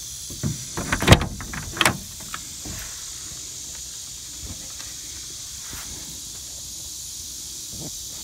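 Car door being unlatched and swung open: a few clicks and knocks in the first two seconds, the loudest about a second in. A steady high hiss runs on underneath.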